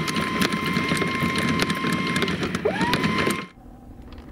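Electric anchor windlass running galvanised chain over its gypsy: a motor whine that winds up and holds steady over a rapid clatter of chain links. It stops about two seconds in, starts again briefly and cuts off near the end.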